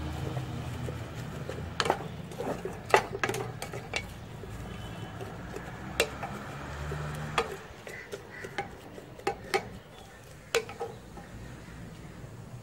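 Wooden spatula stirring stir-fried water spinach in an enamel pot, with irregular knocks and scrapes against the pot's side.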